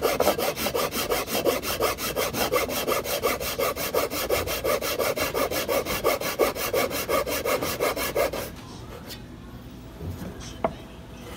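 A thin blade sawing a slot into a wooden rod with rapid, even back-and-forth strokes, several a second, that stop suddenly about eight and a half seconds in. A small knock follows near the end.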